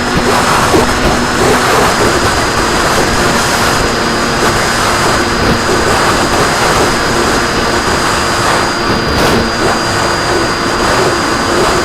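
Radio-controlled plane in flight, its motor and propeller running steadily under a loud rush of wind over the onboard camera's microphone, with a thin high whine held throughout.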